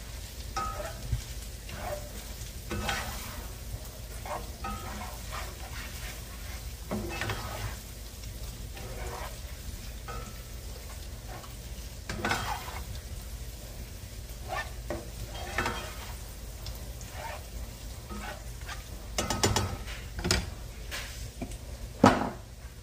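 Crumbled sausage sizzling in a stainless steel skillet while a spatula scrapes and stirs it in short, irregular strokes. A sharp clack near the end.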